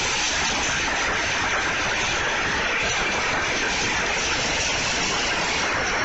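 Pachislot machine sound effect: a steady, even rushing hiss, brightest in the upper range, with no beat or breaks.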